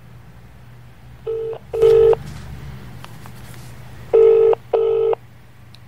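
British telephone ringing tone heard down the line of an outgoing call: two double rings about two seconds apart, each a pair of short steady tones, the very first tone fainter than the rest.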